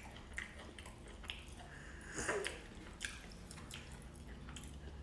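Faint, scattered light clicks and taps of kitchen utensils and dishes being handled, over a low steady hum.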